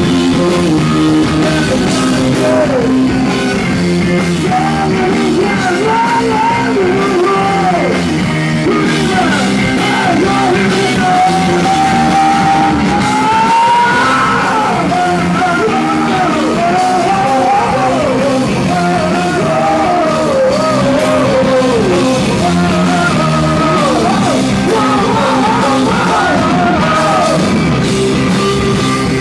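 Live rock band: a male lead vocal sings over electric guitar and drum kit. The singing comes in a couple of seconds in and stops shortly before the end, with the band playing on.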